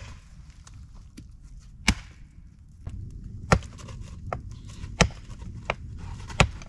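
Wood being chopped: five sharp strikes about a second and a half apart, with lighter knocks in between.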